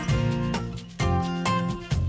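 Background music: a strummed acoustic guitar tune with a steady beat.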